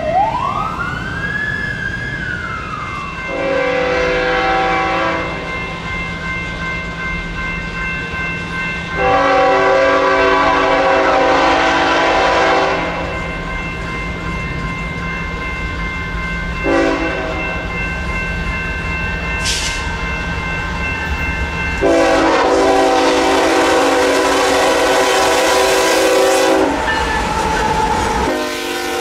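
BNSF diesel freight locomotive's multi-chime air horn sounding a series of blasts for a grade crossing as the train approaches, with the engines' low steady rumble beneath. The locomotives pass close by near the end.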